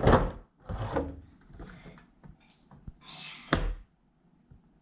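Parts of an LED ring light knocking and clicking together as they are handled and fitted, with a brief rustle, three main knocks in all.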